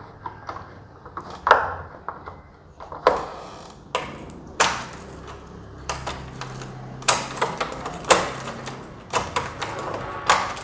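Keys jangling and a freshly refitted Europa door lock being worked with its key: a string of sharp metal clicks and clacks, about nine spread out, as the key turns the cylinder and the bolt moves.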